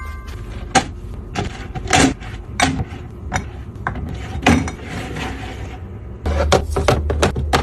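Household items and packaging being handled and set down: a run of irregular light taps and knocks with some rubbing and rustling between them. A steady low hum comes in about six seconds in.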